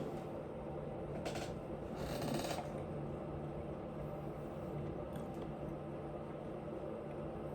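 Eating noises: a few short crackly crunches or rustles, one about a second in and a longer one around two seconds in, over a steady low hum.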